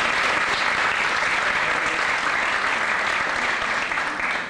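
Audience applauding steadily, dying away right at the end.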